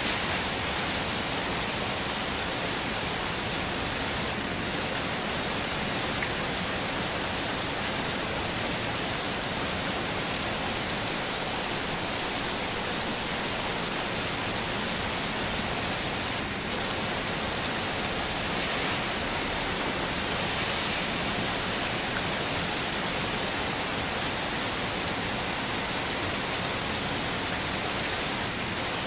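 Heavy rain falling steadily, a dense even hiss, with three brief dips in level evenly spaced about twelve seconds apart.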